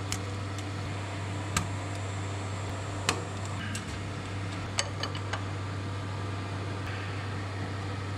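Wrench working a hydraulic line fitting tight on a tractor's rear remote valve block: about half a dozen short, sharp metallic clicks and taps, scattered, over a steady low hum.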